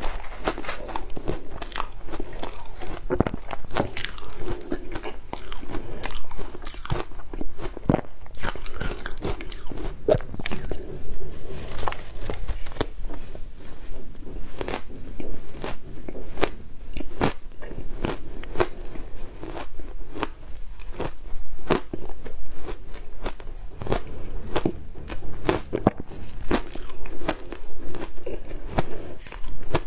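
Close-up crunching and chewing of shaved ice: many sharp, irregular crunches and crackles as the ice is bitten and chewed.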